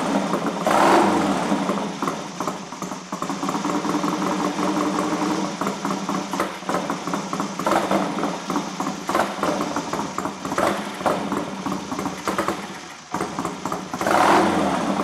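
Classic Triumph twin engine running lumpily at tickover while the throttle is blipped several times. It stumbles and hesitates before picking up on the blips, which the mechanic puts down to the carburettors being out of adjustment: the twin slides not lifting together, or a weak needle setting.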